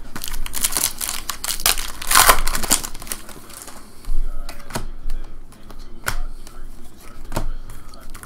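Foil trading-card pack wrappers crinkling as they are handled for the first few seconds, then a few separate sharp flicks of cards being handled one at a time.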